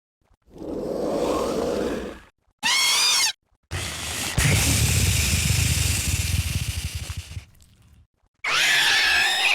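Velociraptor sound effects played one after another, with silent gaps between them. First comes a short low growl, then a brief high warbling screech. Next is a long, deep, noisy growl of about four seconds, and near the end a shrill wavering shriek.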